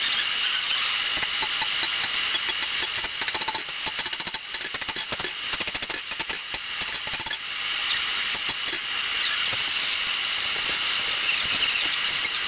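Rapid, irregular knocks of hammering on steel while forging a cutlass blade's tang, over a steady hiss. The knocks thin out about halfway through, leaving mostly the hiss.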